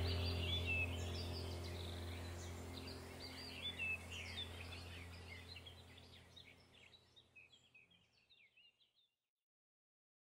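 Birds chirping over a low steady hum, the whole fading out gradually to silence about seven seconds in.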